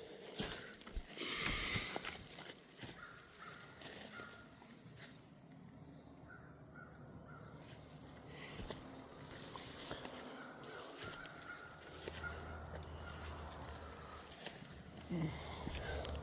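Crows cawing intermittently in the distance, calling in alarm, with a brief rustling noise about a second in and a steady high thin tone underneath.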